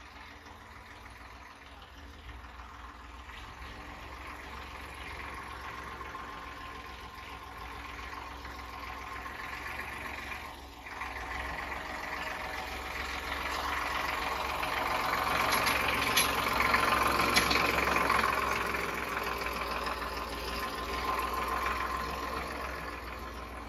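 Diesel farm tractor engine running as the tractor is driven, getting steadily louder, with a short drop about ten seconds in and a few sharp rattling ticks later.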